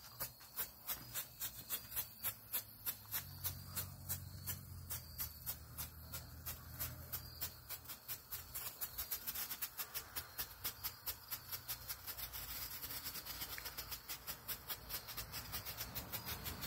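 Brothers strobe fountains burning on the ground, each flash giving a sharp pop in a steady train of about four pops a second that quickens in the second half.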